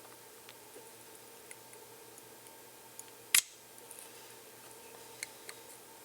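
A spring-loaded solder sucker firing once with a sharp snap about three seconds in, pulling molten solder off a pad it had clogged. A few light ticks and a faint steady hum lie under it.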